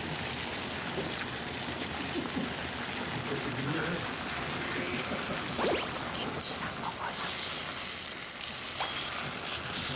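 Dakgalbi (spicy stir-fried chicken) sizzling steadily in a large pan, an even rain-like crackle, with a few faint clicks over it.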